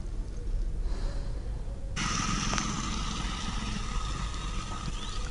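Motorcycle engines running as bikes ride along a flooded road. About two seconds in, the sound changes abruptly to a steady hiss with a thin steady hum in it.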